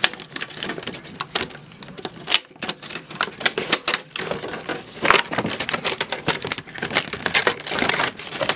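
Plastic shrink-wrap crackling and crinkling as it is picked at and torn off a metal tin, a dense irregular run of sharp clicks.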